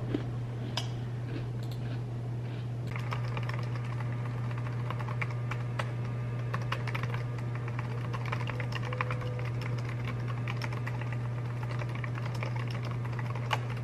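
Rapid typing on a computer keyboard: scattered key clicks at first, becoming a dense run of clicks from about three seconds in, over a steady low hum.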